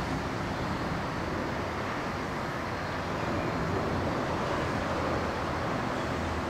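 Steady outdoor street background noise: an even, low rushing with no distinct events.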